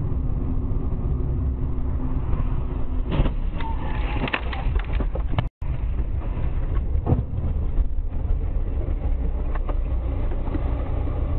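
Car on the move, heard from inside the cabin: a steady low road and engine rumble, with a few sharp knocks a few seconds apart.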